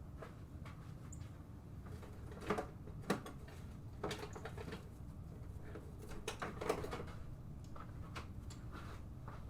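Scattered clicks and light knocks of hand tools and small parts being handled on a car's rear brake and hub assembly, the sharpest a few seconds in and again a little past the middle, over a steady low hum.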